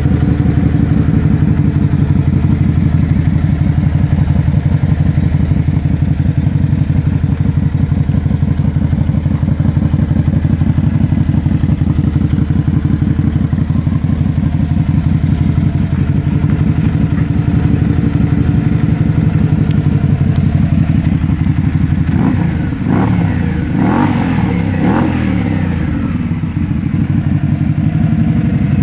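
A 2013–2014 Can-Am Spyder's Rotax V-twin engine idling with an even, lumpy pulse through a long polished RLS aftermarket exhaust. About three quarters of the way through it is blipped several times, each rev rising and falling quickly, then settles back to idle.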